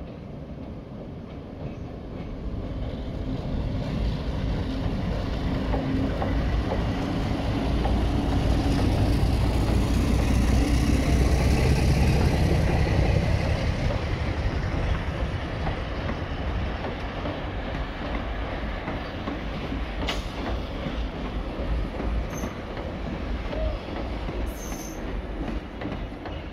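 Vintage Alco diesel-electric locomotive 958 runs past hauling passenger carriages over a steel girder bridge: a heavy engine rumble that builds to its loudest about halfway through, then eases as the carriages roll by with their wheels clacking over the rail joints. A couple of brief high-pitched wheel squeals come near the end.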